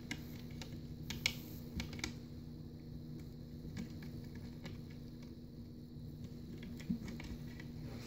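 Faint, scattered light clicks and taps as a servo cable and its connector are handled and fed through a pass-through hole in a project enclosure, over a steady low hum.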